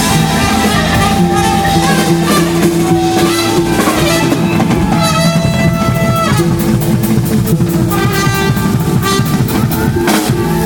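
Live band playing, with a drum kit and guitar under long held melodic notes.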